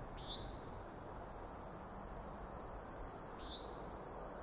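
Crickets trilling: a faint, steady, unbroken high note. Two short chirps break in, one just after the start and one near the end.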